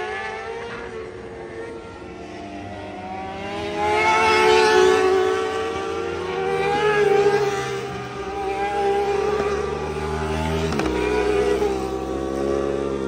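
Racing sport-bike motorcycles going by on the track at high revs, their engine pitch rising and falling as they pass, loudest about four seconds in and again around seven seconds. A short sharp click near the end.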